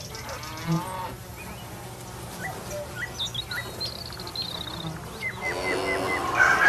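Farmyard ambience: cattle mooing, with small birds chirping in the background. A louder call builds near the end.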